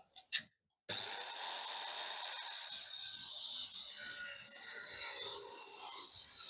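Electric saw starting about a second in, its whine rising quickly as the motor spins up, then running steadily as it cuts through wood.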